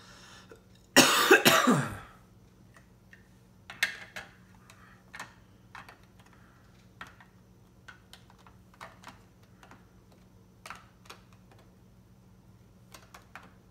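A man coughing hard several times in a row, about a second in, the loudest sound by far. After it come scattered light clicks and rustles as he packs away the cube's boxes and accessories.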